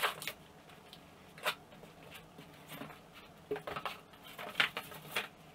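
Packaging and parts being handled while a table saw is unboxed: irregular rustling, clicks and light knocks, with sharper ones at the start, about a second and a half in, and near the end.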